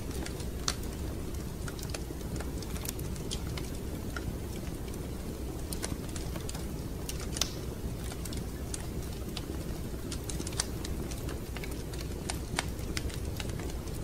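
Fireplace crackling: irregular sharp snaps and pops over a steady low rumble.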